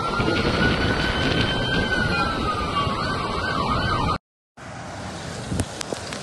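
An emergency vehicle's siren wails, rising slowly and then falling and wavering, over loud wind and rain noise. About four seconds in the sound cuts out briefly, then a quieter hiss of rain falling on a flooded street follows, with a few sharp clicks.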